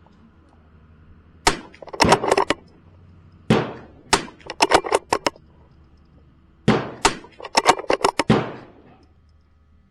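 Semi-automatic .22 LR rifle firing three shots of a timed string, a couple of seconds apart, each crack followed within half a second by a quick run of further sharp cracks.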